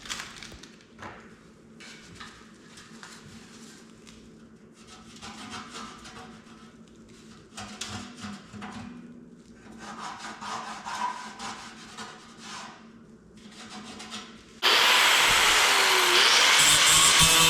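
Hand deburring of a freshly cut metal tank edge: irregular scraping and rubbing strokes of a tool along the metal. Near the end a power tool starts suddenly and runs loud and steady.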